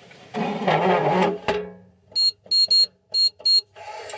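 A rustling, handling clatter that ends in a sharp click, followed by five short identical electronic beeps at uneven intervals.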